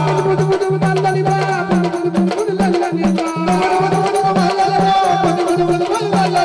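Live Marathi gondhal folk music: a held drone under a steady, evenly repeating drum beat with jingling percussion.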